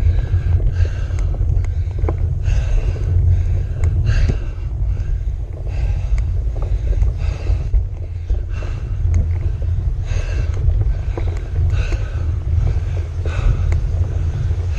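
Wind buffeting the microphone of a camera on a road bike's handlebars while climbing, a steady low rumble, with a fainter rhythmic sound repeating about twice a second over it.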